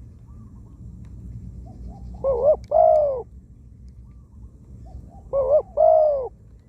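Spotted dove calling twice, about three seconds apart: each call is a quick two-note coo followed by a longer, drawn-out coo. Faint chirps of small birds in the background.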